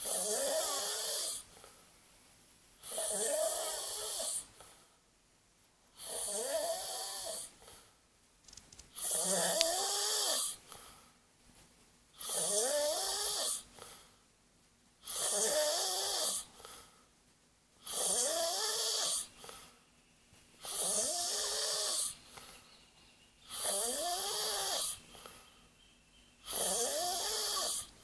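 A pet snoring in a steady rhythm: about ten snores, each lasting a second or so, one every three seconds.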